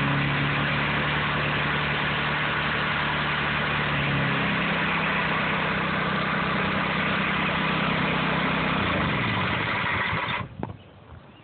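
Briggs & Stratton engine on a pressure washer running at a steady speed, with the hiss of the water jet from the spray wand. About nine seconds in the engine's pitch falls as it is shut off, and the sound stops suddenly a second later.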